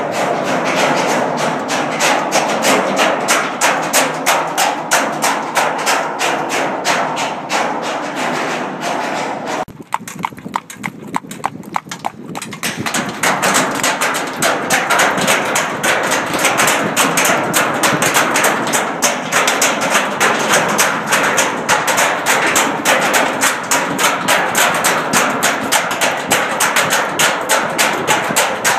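A horse's hooves striking a steel grate bridge deck in a quick, regular trotting beat, over a steady rolling noise from the cart wheels on the grating. The hoofbeats drop away for a couple of seconds about ten seconds in, then come back.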